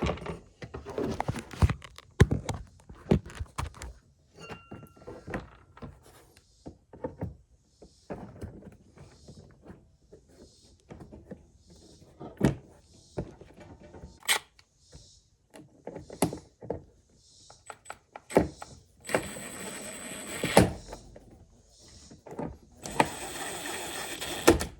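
Hand work on a small generator: a string of knocks, clicks and metallic clinks as tools and parts are handled, with two steady rushing noises of about a second and a half each in the second half.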